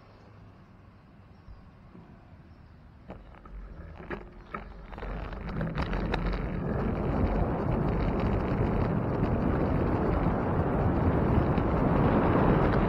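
Wind rushing over the microphone of a riding bicycle, building up from about halfway through as the bike gathers speed, after a few sharp clicks.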